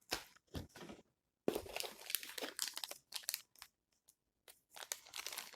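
Plastic packaging crinkling and rustling as it is handled and pulled open, in irregular bursts with short pauses.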